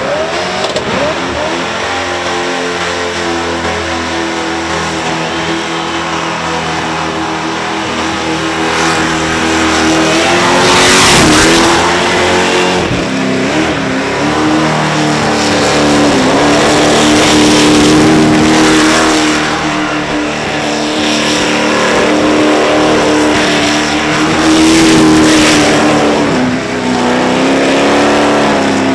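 A 502-cubic-inch V8 in a Holden HQ ute held at high revs through a burnout. The steady engine note dips briefly a few times, over a rushing hiss that swells now and then.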